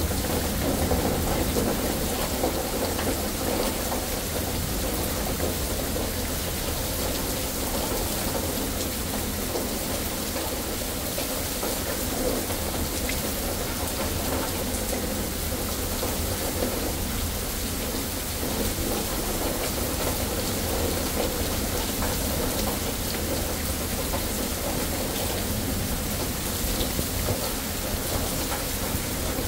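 Steady rain pouring down during a thunderstorm, a dense even hiss of drops on pavement and leaves, with a continuous low rumble underneath.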